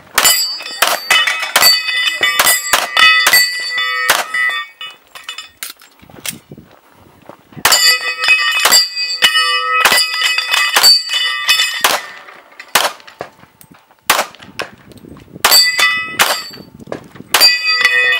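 Pistol shots fired in quick strings at steel targets, each hit followed by the plate ringing with a bell-like clang. One string runs for about four seconds, then comes a pause of about three seconds, a second string, and a few spaced shots and rings near the end.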